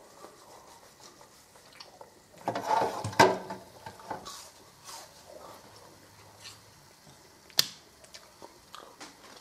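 Metal wire basket of a deep fryer being lifted out of the oil and set in its raised draining position: a brief metal clatter ending in a sharp clank about three seconds in. A single sharp click follows near eight seconds; otherwise only faint low noise.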